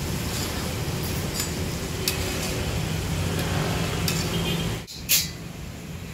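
Battered pork pieces deep-frying in a wok of bubbling oil, a steady sizzle, nearly done and turning golden brown, with a metal spatula clinking lightly on the wok now and then. A low steady rumble runs underneath, and a sharp click comes about five seconds in, just after a brief dip in level.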